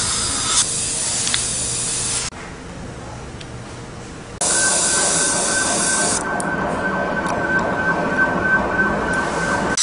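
Dental handpiece running with a steady high whine over a hiss of suction or spray, starting about four and a half seconds in. Before that, a hiss cuts off about two seconds in.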